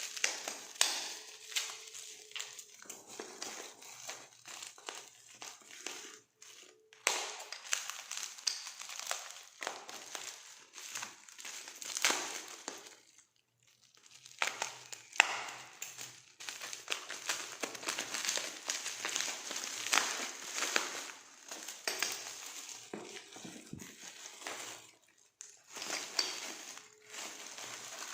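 Parcel wrapping being torn and pulled open by hand without a cutter: stretches of dense crackling noise with a few short pauses.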